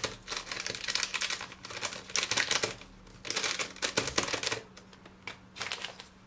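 A paper sachet of vanilla powder being handled and shaken out into a mixing bowl: a quick run of light crinkling and tapping clicks that thins out to a few scattered taps after about four and a half seconds.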